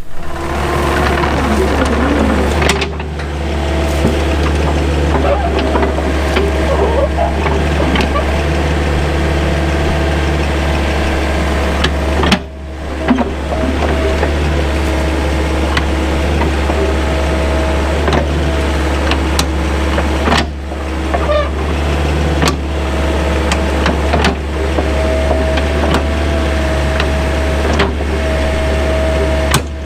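Diesel engine of heavy equipment running steadily under work, a constant low drone with a steady whine over it. The sound drops out briefly about 12 and 20 seconds in.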